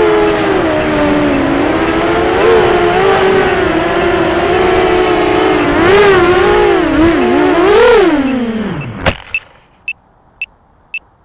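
Brushless Cobra motors and GemFan props of a 250-size racing quadcopter whining close up from on board, the pitch rising and dipping with the throttle. About nine seconds in the whine drops away and a sharp thump marks the quad coming down in the grass. After that come short electronic beeps about twice a second.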